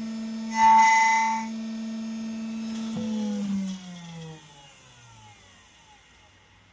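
Key-cutting machine motor running steadily, with a louder, brighter whine for about a second near the start. About three seconds in it is switched off and winds down, its pitch falling for a couple of seconds until it stops.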